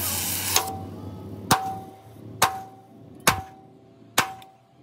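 Hammer blows on metal, five at an even pace of about one a second, each leaving a short ringing note at the same pitch. A hiss dies away in the first half second.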